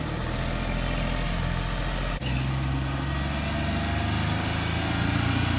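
Mahindra Bolero's engine running steadily as the SUV is worked out of soft field ground where its wheels were slipping, with a brief break about two seconds in.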